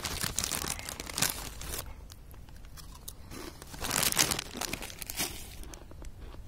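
Plastic crisp packet crinkling and being torn open: dense crackling for the first couple of seconds, then another loud burst of crinkling about four seconds in.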